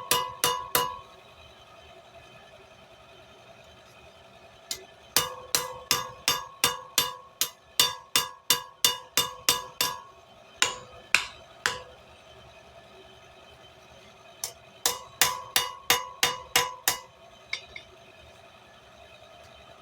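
Hand hammer forging steel bar stock on an anvil: runs of quick blows, about three a second, each with a ringing metallic tone, broken by pauses of a few seconds.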